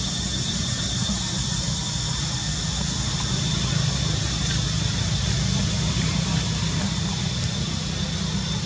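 Steady outdoor background noise: a constant low rumble under a continuous high hiss, with no distinct events.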